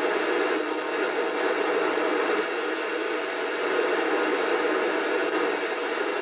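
Steady open-squelch receiver hiss from a Midland 76-300 FM CB base station's speaker, with about a dozen sharp clicks from the channel selector as it is turned, coming faster in the second half. The hiss cuts off suddenly at the end.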